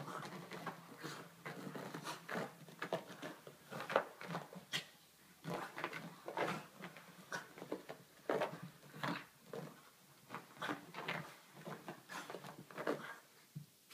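A small dog wriggling and rolling on its back on a carpet: an irregular run of short scuffs and rustles as its fur and paws rub on the carpet pile.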